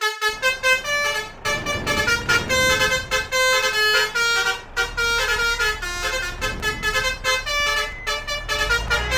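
Basuri 'telolet' musical air horn playing a quick melody of short, changing-pitch toots, with a low vehicle engine rumble beneath.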